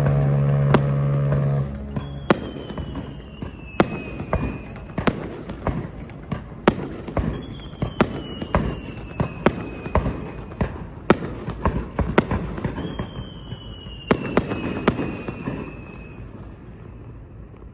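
Fireworks going off: a string of sharp bangs with rumbling tails, irregularly spaced, and three high whistles that slide slowly downward. A deep, steady horn blast, which fits the departing ship's whistle, cuts off a little under two seconds in. The bangs thin out and fade near the end.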